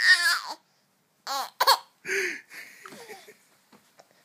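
A baby laughing. A laugh trails off at the start, then two short giggles come a little over a second in, followed by a breathy giggle and quiet babbling.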